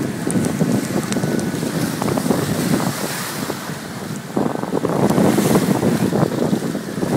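Strong gusting wind buffeting the microphone, with choppy lake water splashing beneath it. The wind eases briefly about four seconds in, then picks up again.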